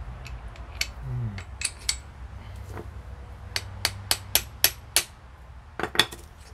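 Hammer blows on steel driving a new kingpin bush into a Citroën 2CV front hub. There are a few single sharp knocks at first, then a quick run of about six strikes, and two more close together near the end.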